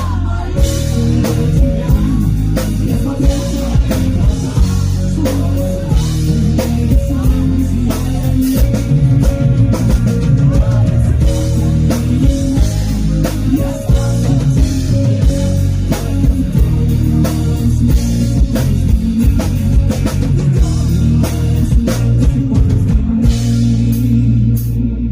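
Live rock band playing, with guitar and a drum kit beating steadily.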